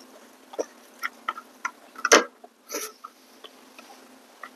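Eating sounds of people eating rice and fresh greens by hand: wet chewing and mouth clicks, heard as scattered short ticks, with one louder burst about two seconds in.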